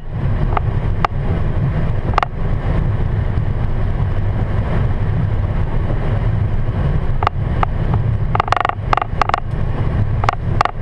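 Boeing 737 taxiing, heard from inside the cockpit: a steady low rumble from the engines and the rolling airframe. A few short clicks come early, and a burst of short sharp sounds comes about eight seconds in.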